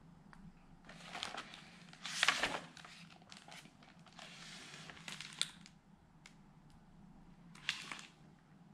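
Paper rustling and crinkling as a picture book's page is turned, in several bursts that are loudest a little over two seconds in, followed by a few light clicks and another brief rustle as the book is handled.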